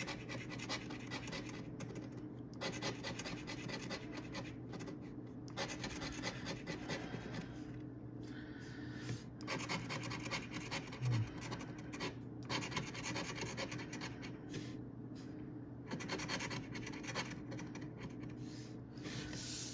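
A coin scratching the coating off a paper scratch-off lottery ticket, many quick strokes in runs with short pauses between them.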